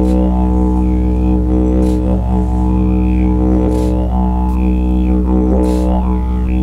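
Didgeridoo playing one continuous low drone, kept going without a break by circular breathing. Its overtones waver above the drone, with a short accent about every two seconds.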